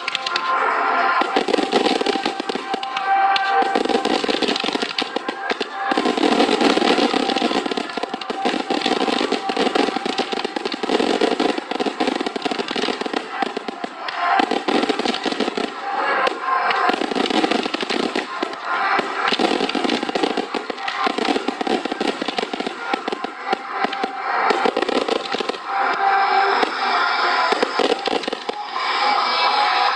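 Fireworks going off in a dense barrage: rapid pops and crackles that swell and ease every couple of seconds, with music playing underneath.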